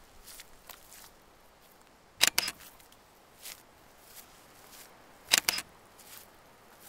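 Footsteps rustling slowly through undergrowth in the dark, with sharp snapping cracks in two quick clusters, about two seconds in and again about five and a half seconds in.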